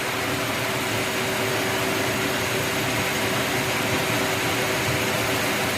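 Steady whirring hum of a 2018 Nissan X-Trail's engine left idling while air bleeds out of its freshly filled cooling system. The coolant is still bubbling and circulating.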